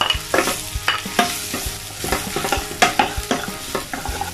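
Raw potato sticks sizzling in hot oil in a nonstick pan, stirred with a wooden spatula that knocks and scrapes against the pan about twice a second.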